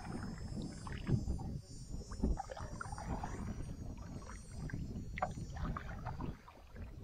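Canoe paddling: a wooden paddle dipping and pulling through the water in repeated strokes, with water splashing and lapping along the canoe's hull.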